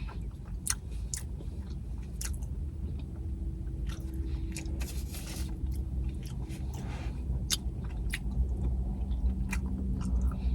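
Close-up chewing of a mouthful of slider burger, with scattered sharp wet mouth clicks and smacks over a low steady hum.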